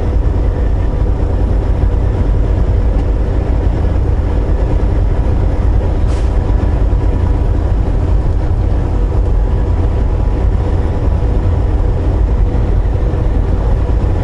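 Steady low drone of a Volvo VNL860 semi truck driving at road speed, engine and road noise heard inside the cab.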